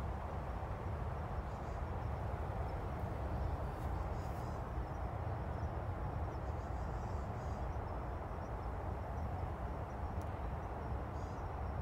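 Outdoor ambience: a steady low rumble with a faint, high, continuous insect trill and a few short high chirps.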